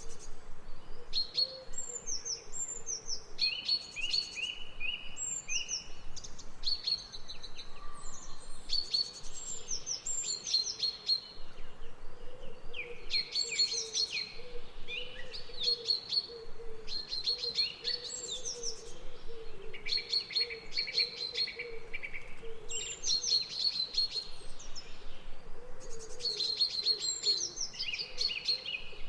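Birds singing, with a bright phrase of rapid high chirps and whistled notes every couple of seconds. A fainter, lower wavering sound runs underneath.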